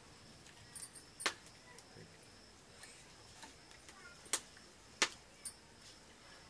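Steel plates and bowls clinking as a meal is eaten by hand from them: a handful of sharp, short clicks, the loudest about five seconds in, over a faint steady high tone.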